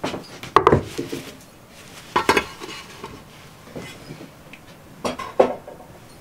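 A heavy pot being set down on a wooden board and its lid handled: three groups of clunks and clanks, near the start, about two seconds in, and about five seconds in.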